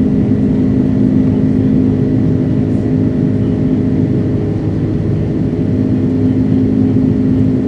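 Steady drone of an Airbus A330-200's Rolls-Royce Trent 700 jet engines, heard from inside the passenger cabin in flight, an even hum that does not change.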